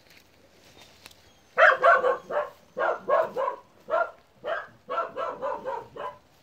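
A dog barking repeatedly, about three short barks a second, starting about one and a half seconds in and stopping shortly before the end.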